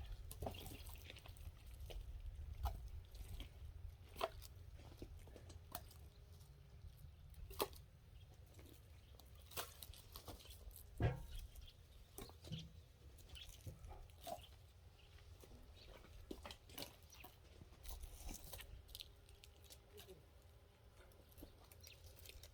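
Faint scattered clicks and knocks over a low rumble, with one sharper knock about eleven seconds in.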